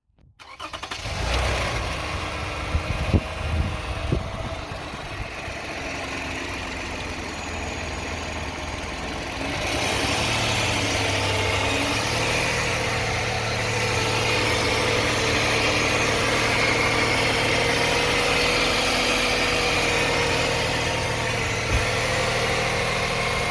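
2009 Toyota Sienna's V6 idling with a steady buzzing whine from the transmission, still present after a fluid drain and fill; a mechanic put it down to a bad transmission oil pump. A few clunks sound a few seconds in, and the whine gets louder and brighter about ten seconds in.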